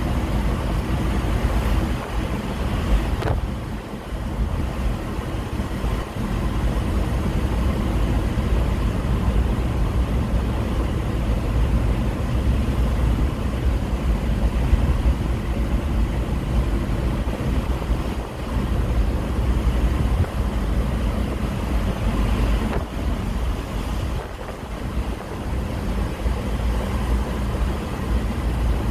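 Volkswagen Eurovan driving through a road tunnel, heard from inside the cabin: a steady low rumble of engine and tyres with a hiss above it, easing briefly twice.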